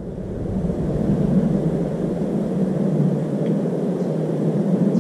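Wind buffeting the microphone: a steady, low noise with no distinct events.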